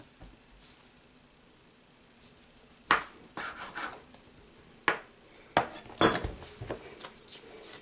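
Kitchen knife cutting bread dough and knocking and scraping on the countertop. Quiet at first, then a few sharp knocks and scrapes from about three seconds in, the loudest near six seconds.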